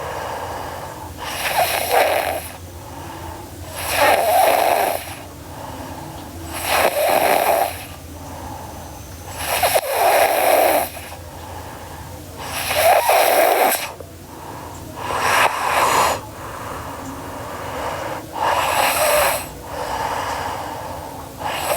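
A sleeping girl snoring: breathy, rasping snores that repeat steadily about every two to three seconds, each lasting about a second.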